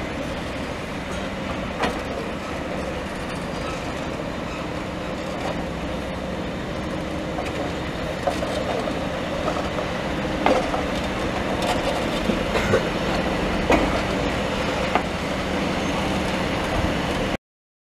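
Train of MÁV Bz coaches hauled by an M47 'Dacia' diesel locomotive rolling past close by: a steady rumble with a low engine hum, and scattered sharp clacks and knocks from the wheels over rail joints, louder in the second half. The sound cuts off abruptly near the end.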